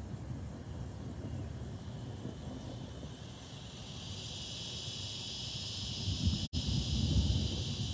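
Strong thunderstorm wind gusting and buffeting the microphone, a low rumbling that builds toward the end. From about halfway a steady high hiss joins it, and the sound cuts out for a split second near the end.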